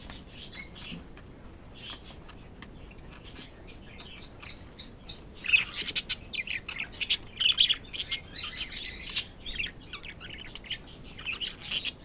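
Budgerigars chirping, a few scattered calls at first, then a quick run of short repeated chirps, turning busier and louder about halfway through.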